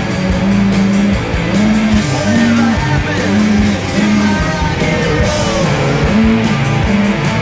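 Rock music with guitar, a steady beat and a singing voice.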